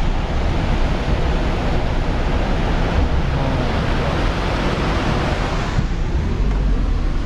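Steady roar of a fast, swollen river in spate, with wind buffeting the microphone in a fluctuating low rumble.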